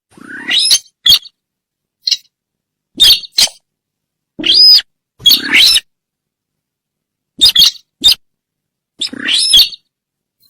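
Recorded call of the sintar bird played as a hunting lure: loud, short calls, several sweeping up in pitch, repeated in groups of one to three with dead silence between them.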